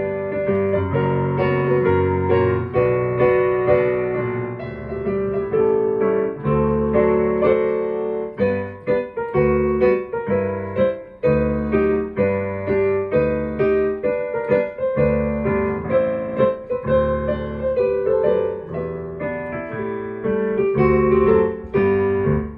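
Digital piano played solo: a show tune with chords under the melody, which ends on a final chord near the end.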